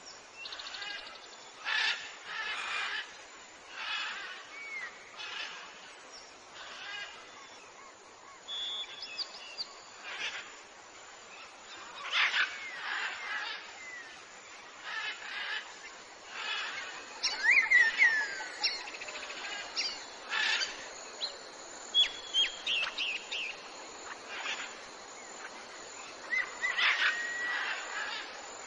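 Wild birds calling and chirping: short harsh calls repeating every second or two, with clear whistled notes that rise and fall, loudest in the second half.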